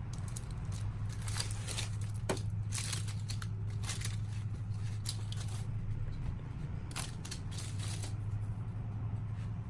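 Baking parchment crinkling and rustling in a run of short crackles as a loaf is tipped out of its paper-lined loaf tin, over a steady low hum.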